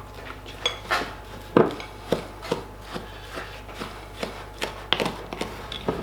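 Anzac biscuit mixture being stirred in a mixing bowl: irregular scrapes and sharp knocks of the utensil against the bowl, about one or two a second, as the wet and dry ingredients are worked together.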